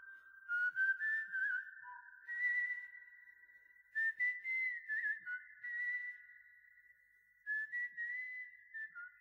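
Unaccompanied high whistled notes with small slides between them, in three phrases that each start sharply and fade away.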